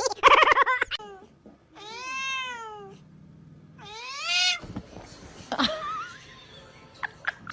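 A cat meowing twice: two long drawn-out meows, each rising and then falling in pitch, about a second apart.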